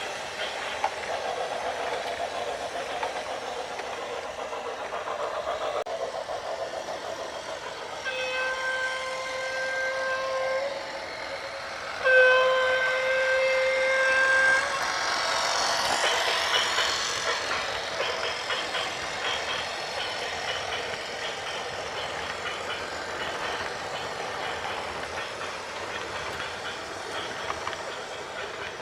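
Two long horn blasts, each about two and a half seconds, the second louder, sound over a steady rumbling, clattering vehicle noise. A rushing hiss swells just after the second blast and fades.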